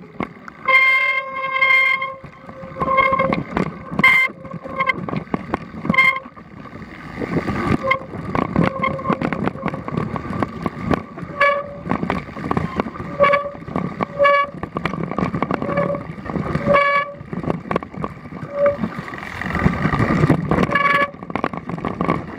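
Mountain-bike disc brakes, wet from the rain, squealing in many short bursts at one steady pitch each time they are applied, over the rattle and clatter of the bike bouncing down a rocky trail.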